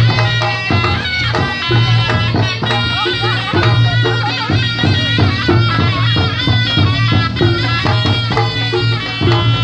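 Reog Ponorogo ensemble music: a nasal double-reed shawm (slompret) plays a bending, ornamented melody over repeated drum and gong strokes and a steady low tone.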